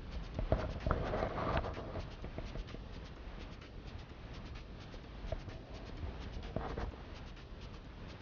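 Muffled underwater sound heard through a camera's waterproof housing: a low rumble with scattered faint clicks, and louder clusters of knocks about a second in and again near the end.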